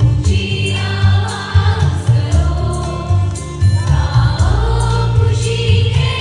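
Boys' choir singing over a musical accompaniment with strong bass notes.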